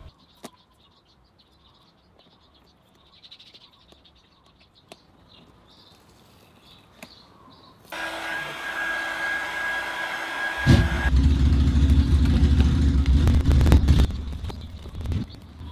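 Small electric heat gun switched on about eight seconds in: a steady fan hiss with a whining motor tone, used to warm a vinyl warning sticker's adhesive so it peels off without lifting the paint. A few seconds later a much louder low rumble with sharp crackles takes over until near the end.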